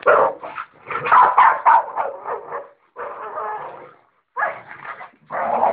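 American Pit Bull Terriers play-fighting, barking and yipping in rapid short bursts, with a longer drawn-out call around three seconds in and a brief pause just after four seconds.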